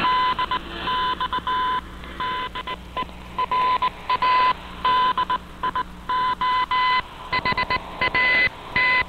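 Morse code: a single beeping tone keyed on and off in short and long beeps, received over a shortwave radio broadcast with a hiss between the beeps.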